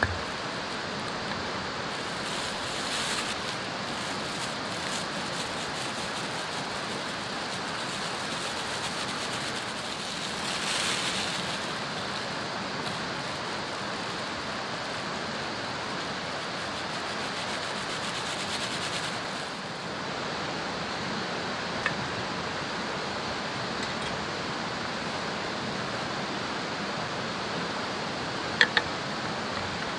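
Steady rush of flowing water from a nearby stream. A few brief hissing bursts sit over it, and there are sharp clicks near the end.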